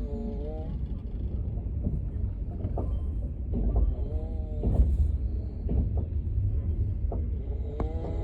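A person snoring in regular breaths about every four seconds over the steady low rumble of a moving passenger train, with occasional sharp knocks from the train.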